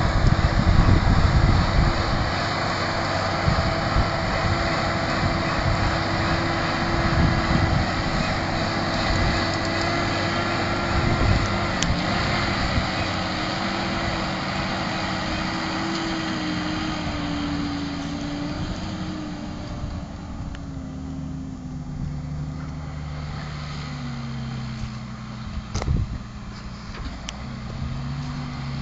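Small tractor engine running, its note falling slowly as the revs drop off and the running quietens, with a single sharp knock near the end.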